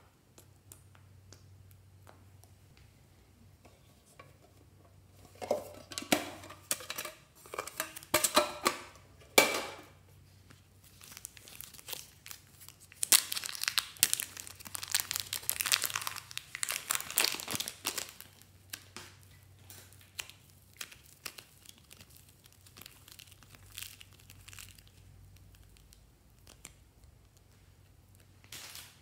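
Thin plastic bag crinkling and rustling as it is handled and squeezed to push soft slime out, in two spells, the louder one about halfway through, with quiet stretches between.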